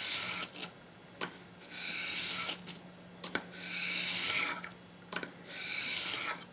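Steel blade of a Craftool leather splitter rubbed back and forth flat on wet/dry sandpaper over a granite block, being sharpened: about four gritty scraping strokes, each a second or so long, with a sharp click between strokes.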